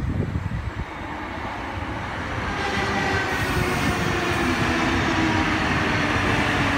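OSCAR H-set double-deck electric train pulling into the station and slowing to stop. Its rumble grows steadily louder as it draws close, with steady motor whine tones that sink slowly in pitch.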